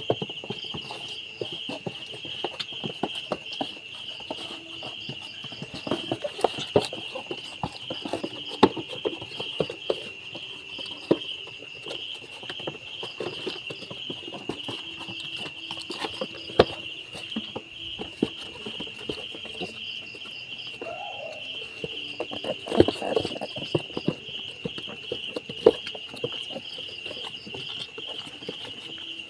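Crickets chirping in a steady, evenly pulsing chorus, with scattered clicks and knocks over it.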